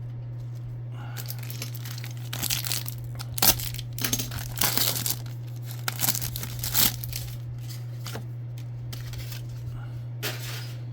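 Trading-card pack wrapper being torn open and crinkled by hand, in a series of irregular rustling bursts, over a steady low hum.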